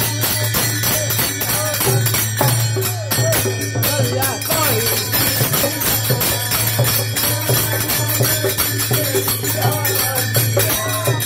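Men singing a Bhojpuri faguwa (Holi folk song) together, accompanied by a rope-tensioned dholak drum and small brass hand cymbals (jhal) clashing in a fast, steady rhythm.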